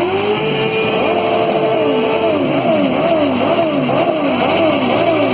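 Loud vehicle sound at a motorcycle gathering. A pitched tone rises and holds steady for about two seconds, then swings up and down in pitch about twice a second over a low steady hum.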